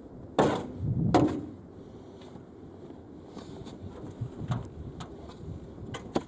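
Snow shovel working snow: two loud scraping strokes about half a second and a second in, then a few lighter knocks and clicks.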